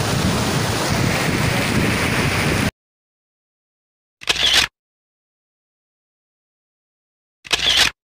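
Steady wind noise buffeting the microphone, mixed with rain, cuts off abruptly about two and a half seconds in. Then two short sounds of about half a second each, one near the middle and one at the end, with silence around them.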